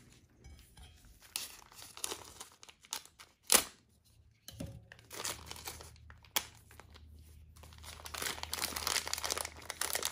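Plastic instant-noodle packaging crinkling and rustling as it is handled, with one sharp knock about three and a half seconds in and denser crinkling near the end.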